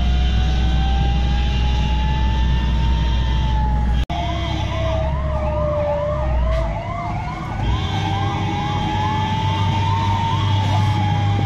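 Fire engine sirens: a slow wail rising and falling throughout, joined about four seconds in, after a brief break in the sound, by a fast repeating yelp, over the low rumble of the trucks' engines.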